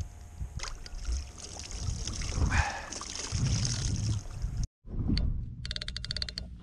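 Sea water splashing and trickling against the side of a kayak while a mackerel is gutted over the side, with small handling knocks. The sound drops out suddenly near the end, then a rapid run of mechanical clicking starts.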